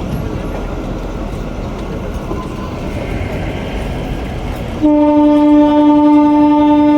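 Kalka–Shimla narrow-gauge toy train running along the track, then its horn sounds, a loud steady blast that starts abruptly about five seconds in and is still going at the end.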